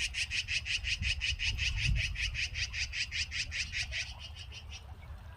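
Magpies giving their harsh chattering rattle, a rapid run of about six notes a second that fades and stops near the end, as they mob a hawk.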